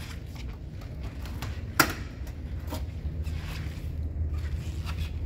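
Trunk latch of a 1972 Chevrolet Monte Carlo releasing with one sharp click about two seconds in, with a few lighter knocks as the lid goes up, over a low steady hum.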